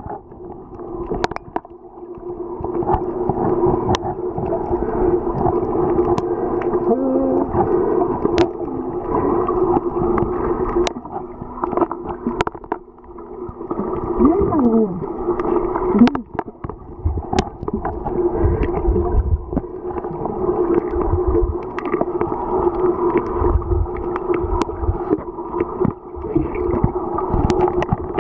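Muffled underwater sound picked up by a submerged camera: water moving around it, a steady low hum throughout, and sharp clicks every second or two.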